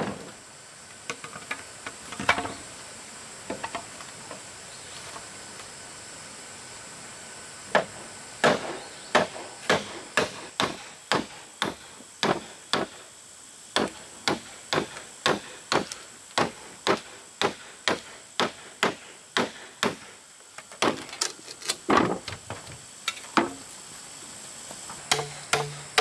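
A hammer striking wood with sharp, even blows, about two a second, after a few scattered knocks. A steady high-pitched tone of insects runs underneath.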